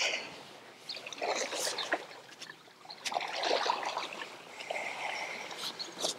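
Lake water lapping at the shore in small, irregular splashes and trickles.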